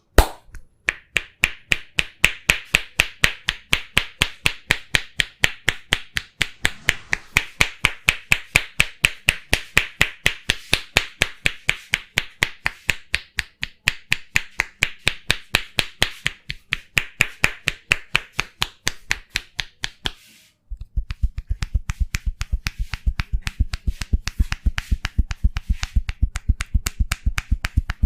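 Massage percussion: fast, rhythmic slaps of the hands, about five a second, with a bright, clapping ring. After a brief stop about twenty seconds in, the strikes resume deeper and heavier.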